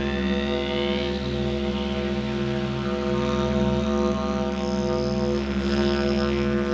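Didgeridoo playing one steady low drone, with overtones that glide upward and shift above it.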